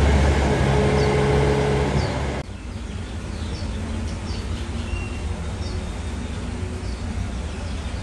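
Loud steady mechanical rumble with a low hum, cut off abruptly about two and a half seconds in, leaving quieter outdoor ambience. Small birds chirp repeatedly, with short high calls.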